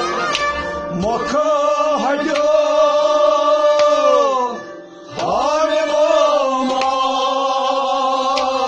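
Kashmiri Sufi song: a voice sings two long, drawn-out phrases with wavering held notes and a short break between them about halfway through, over instrumental accompaniment with occasional percussion strikes.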